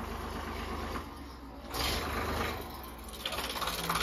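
Farm tractor's diesel engine idling with a steady rhythmic clatter, getting louder for a moment about two seconds in and again near the end.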